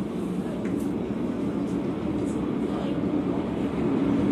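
MTR Island Line train approaching the platform without stopping: a steady rumble that grows louder about three and a half seconds in.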